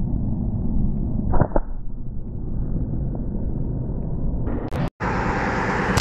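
A flat-band slingshot is fired once about a second and a half in: a sharp double snap as the rubber bands release, over a steady low rumble of wind on the microphone. Near the end the sound drops out for a moment and comes back as a brighter outdoor hiss.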